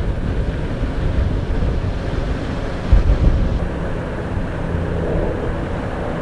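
Steady low outdoor rumble, with a brief louder bump about three seconds in.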